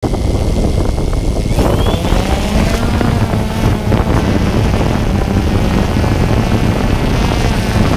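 DJI Phantom quadcopter's propellers spinning up with a rising whine about a second and a half in as it lifts off, then a loud steady buzz and rush of propeller wash on its onboard microphone.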